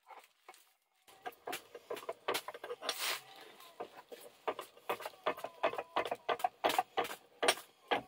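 Prentiss No. 90 bench vise being handled and fitted back together on bubble wrap: a quick irregular run of short metal knocks and clicks, with the plastic crinkling under it, starting about a second in.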